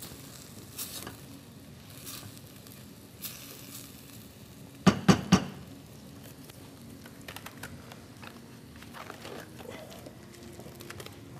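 Sliced onions frying in a stainless steel pot, stirred and scraped with a wooden spoon, with a low sizzle. About five seconds in come three quick, loud knocks.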